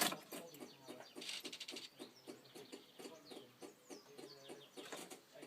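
A sharp click, then rapid even clicking, about eight clicks a second, from a car engine that fails to start when the key is turned.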